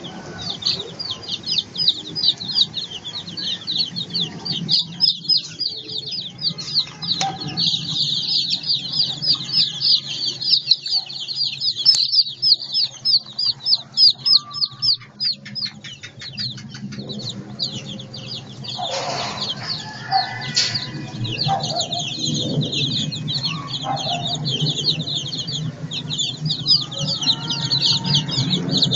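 A brood of Đông Tảo chicks peeping all together: a dense, rapid stream of high cheeps that thins briefly a little past the middle, then picks up again.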